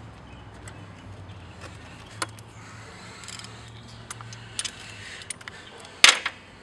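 Scattered light metallic clicks and clinks of hand work on car parts, with one sharp, loud clank about six seconds in. A low steady hum runs underneath.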